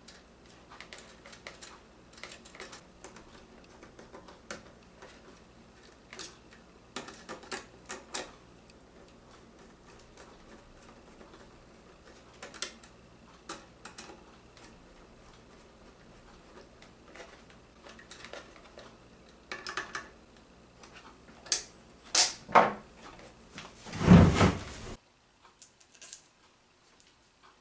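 Scattered light clicks and knocks over a low steady hum, with a louder burst of knocking and clatter about 24 seconds in, after which the sound cuts off to near silence.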